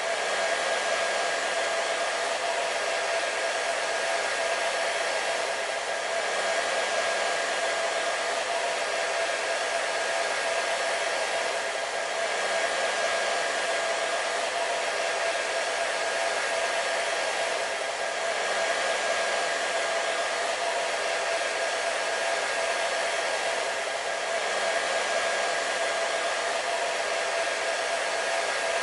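Hair dryer running steadily: an even rush of blown air with a constant motor whine running through it.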